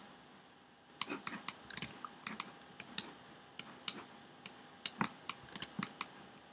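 Irregular clicking and tapping of a computer keyboard and mouse, about three clicks a second, starting about a second in.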